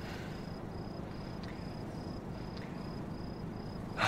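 A cricket chirping steadily in an even rhythm, about two and a half short high chirps a second, over a low background hum. A brief louder breathy sound comes in right at the end.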